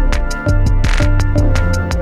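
Electronic music: a rapid, evenly spaced beat over a deep bass line and held synth tones, with a short hissy swell about a second in.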